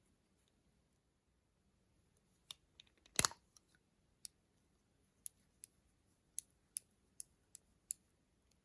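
Quiet, sharp clicks and taps of small objects being handled. A louder clatter comes about three seconds in, followed by a run of about eight single clicks roughly every half second.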